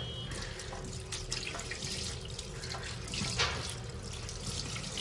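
Water running from a kitchen tap into a sink, with irregular splashes.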